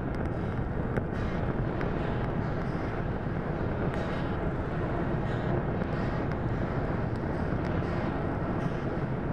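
Steady low rumble of noise with faint scattered crackles, like a distant vehicle or machine drone.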